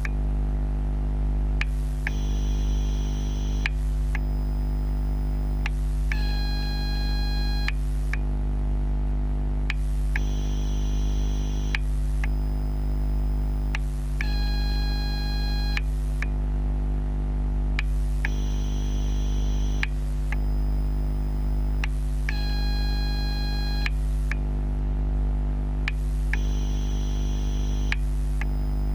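TGX12 smart charger for NiMH/NiCd AA cells, picked up through contact microphones: a steady low electrical hum under a high-pitched whine. The whine switches between different sets of tones about every two seconds, with a short tick at each switch, and the cycle repeats about every eight seconds.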